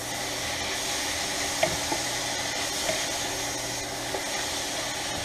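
Rice noodles, chicken and pad thai sauce sizzling in a hot Copper Chef pan as they are stirred: a steady hiss with a few light clicks of the utensils against the pan.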